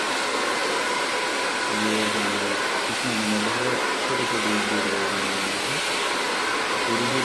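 Handheld hair dryer blowing steadily, a constant rush of air aimed into hair held on a round brush.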